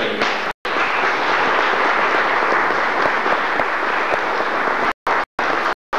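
Audience applauding, many hands clapping together. The sound is cut by a few brief silent dropouts near the end.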